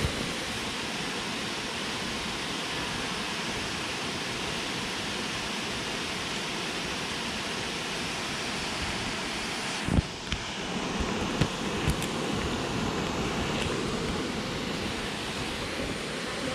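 Steady rushing noise, with a sharp knock about ten seconds in and a few softer knocks over the next two seconds.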